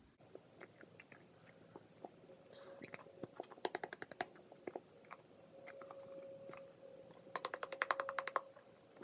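White PVA glue being squeezed out of a plastic bottle: scattered clicks, with two bursts of rapid crackling clicks as the bottle is pressed and the glue spurts out.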